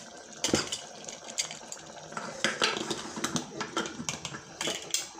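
Irregular metal clinks and knocks as the lid is fitted and closed on a pressure cooker.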